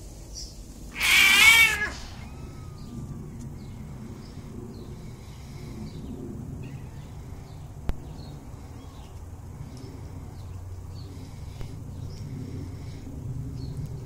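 A kitten meowing: one loud call about a second in, lasting just under a second and bending in pitch.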